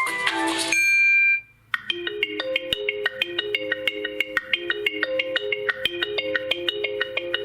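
Nokia 2.2 stock Android ringtones: one melody ends in the first second, and after a brief gap a new ringtone starts, a quick repeating pattern of short struck notes.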